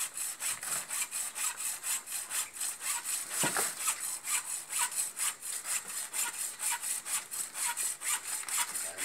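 Quick, regular rasping strokes, about five a second, high and hissy, kept up without a break.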